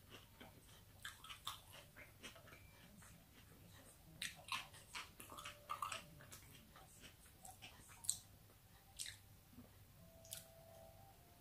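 A person chewing a mouthful of soft chicken fajita wrap with the mouth closed: faint, irregular wet mouth clicks and smacks, coming in clusters with a few louder ones around the middle.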